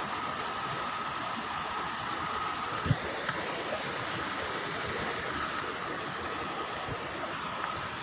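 Steady rush of flowing water from a nearby waterfall or stream, with a faint steady high hum over it. A single dull thump about three seconds in.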